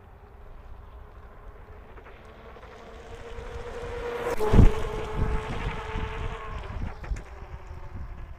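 Electric bike's QS 205 hub motor whining as it goes by, growing louder to a peak about four and a half seconds in, where the pitch drops a little and a gust of wind noise hits; then the whine fades away.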